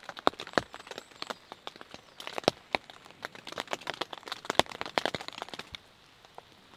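Raindrops tapping irregularly on a Poler two-man tent, heard from inside the tent, with many sharp ticks of uneven strength. Near the end the ticks stop and only a faint, steady rain hiss remains.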